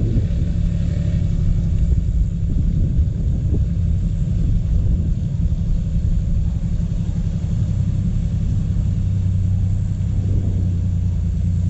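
Toyota 80 series LandCruiser engine running with a steady low rumble while the four-wheel drive works through mud.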